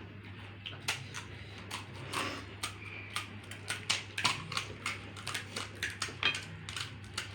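Crisp fuchka shells being bitten and crunched, a quick irregular run of sharp cracks and clicks, over a steady low hum.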